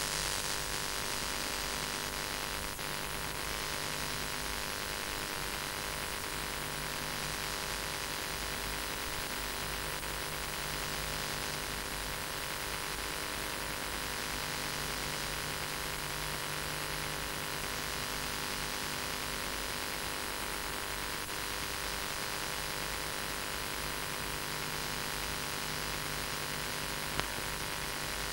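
Steady hiss and electrical hum on an old VHS tape soundtrack, with one short click near the end.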